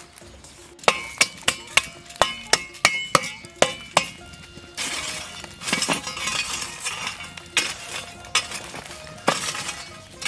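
A metal shovel working through a pit of burning charcoal. First comes a quick run of about ten glassy clinks as charcoal pieces knock together, then a longer scraping crunch as the shovel digs into the coals and ash.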